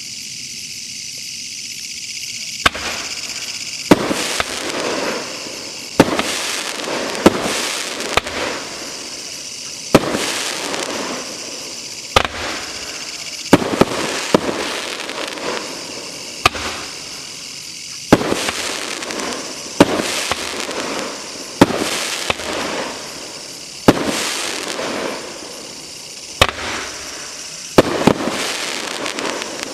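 An 18-shot consumer firework cake firing. Sharp reports come every one to two seconds, starting about two and a half seconds in, and each is followed by about a second of noisy crackle from the shell.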